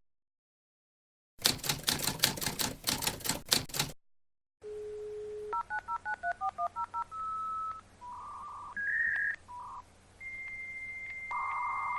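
Rapid typewriter-like key clicks for about two and a half seconds. A steady tone follows, then a quick run of about ten touch-tone dialing beeps, then a series of held electronic tones at different pitches.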